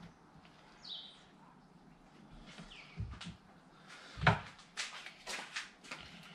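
A sharp knock of something set down on the workbench, followed by a quick run of short scraping strokes as the strip is worked by hand. A bird chirps briefly twice before.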